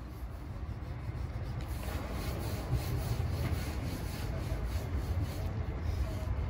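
Wind buffeting the microphone: a low, uneven rumble that grows slightly louder toward the end, over faint rail-yard noise from a coach being shunted.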